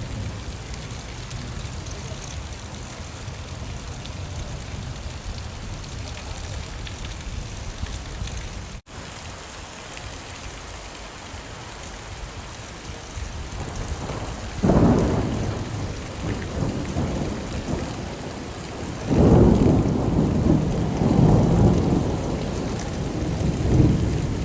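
Steady rainfall, with a brief cut in the sound just before nine seconds in; in the second half thunder rumbles, once at about fifteen seconds and again from about nineteen seconds, the second rumble longer and rolling on for several seconds.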